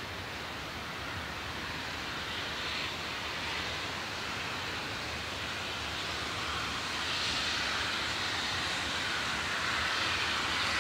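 A train's steady rushing noise, growing gradually louder.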